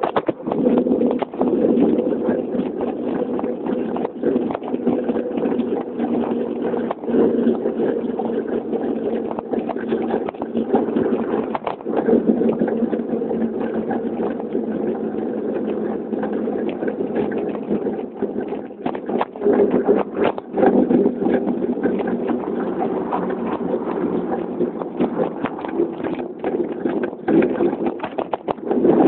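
Wind and road noise on a bicycle-mounted camera's microphone while riding: a steady low rumble broken by frequent short knocks and rattles from bumps in the road.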